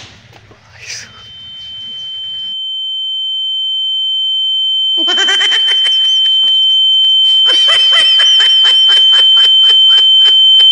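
A single steady high-pitched ringing tone that swells louder and louder and cuts off suddenly near the end, with voices talking or laughing under it in the second half.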